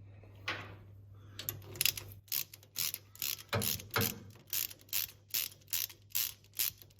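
A 3/8-inch drive ratchet clicking in quick back-and-forth strokes, about two to three a second, as small differential cover bolts are undone.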